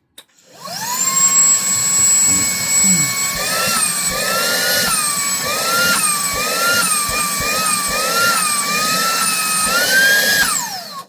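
Day Plus YC777 cordless handheld vacuum motor spinning up to a high whine while its suction is tried out. From about three seconds in, the pitch rises and dips roughly once a second. The motor switches off and winds down near the end.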